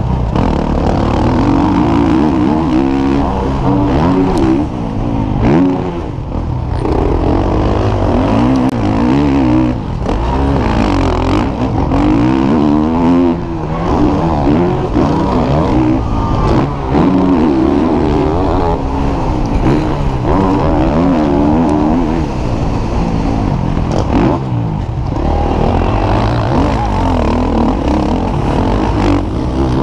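Motocross bike engine heard up close from the bike, revving up and falling back again and again as the rider accelerates, shifts and brakes around the track.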